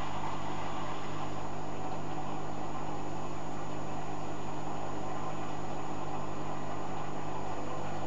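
Hoover Dynamic Next front-loading washing machine running mid-cycle: a steady low motor hum with a hiss over it. The hiss eases slightly about a second and a half in.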